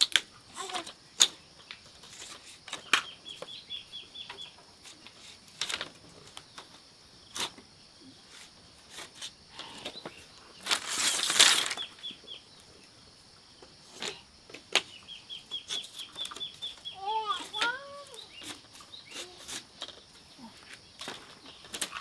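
Chickens clucking, with one loud burst of wing-flapping a little past the middle and scattered sharp clicks and knocks.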